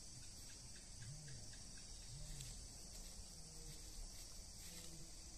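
Faint outdoor ambience with a steady high insect chorus like crickets or cicadas, and a few faint low hums now and then.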